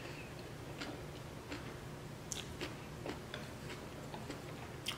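Faint, irregular wet mouth clicks of someone chewing food close to the microphone, over a low steady hum, with one sharper click near the end.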